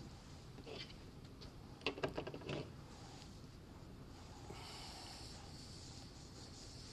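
Quiet room tone with a brief cluster of faint clicks and scrapes about two seconds in, from hands working the grafting knife and apple wood, and a soft hiss a little later.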